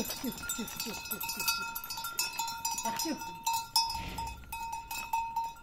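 Bells clinking and ringing without a break, with short falling animal calls among them.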